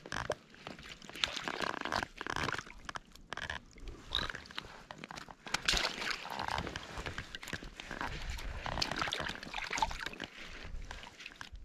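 Irregular small splashes, rustles and knocks from a freshly netted cutthroat trout being handled and unhooked at the water.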